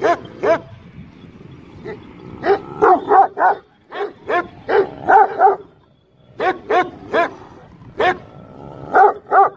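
Kangal shepherd dogs barking at each other in a face-off: sharp, repeated barks in quick runs of two to five, with short pauses between the runs.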